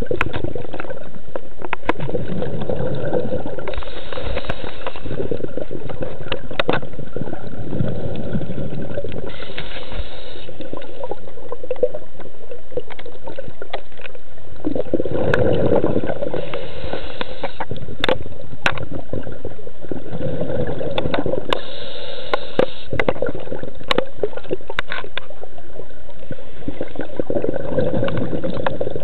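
Scuba diver breathing through a regulator underwater: a hissing inhale alternating with a rumbling gush of exhaled bubbles, about one breath every five to six seconds, with scattered clicks and knocks.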